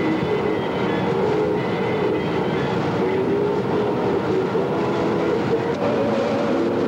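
Steady road and engine noise inside the cabin of a car driving at highway speed, with a wavering hum under it.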